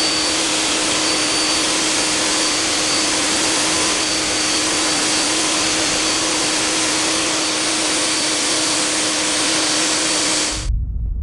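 Cold fog generator blowing insecticide solution out as a fine mist: a loud, steady blower hiss with a constant whine. It cuts off suddenly near the end and a low rumble begins.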